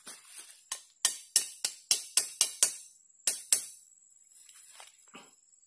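Sharp metallic taps as a latex spout is knocked into the bark of a rubber tree below the fresh tapping cut: a quick run of about seven taps, then two more.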